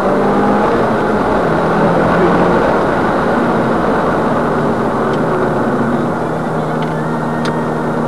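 Subaru Impreza WRX STI's turbocharged flat-four engine running under load at track speed, with tyre and road noise on wet tarmac. The engine note breaks briefly about a second in, and the sound eases a little about six seconds in.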